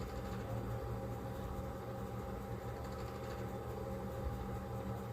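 Steady low hum of room background noise, like a running fan or mains appliance, with no distinct events.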